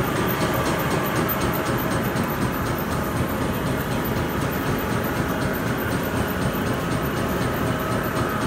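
Tyre grinding machine running steadily under load, grinding scrap tyre rubber into fine powder, a continuous dense mechanical clatter.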